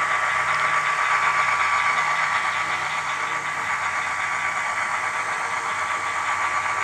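Model diesel locomotive running steadily, its engine sound constant and unchanging, over a steady outdoor buzz of insects.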